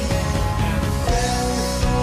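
Rock intro music with guitar.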